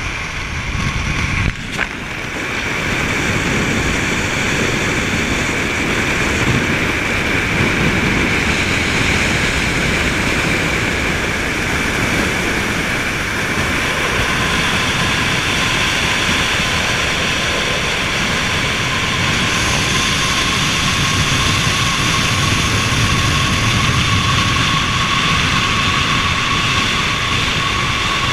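Steady rush of wind and road noise from a Chevrolet D-Max 2.5 turbodiesel pickup driving at speed, with a faint steady high whine on top.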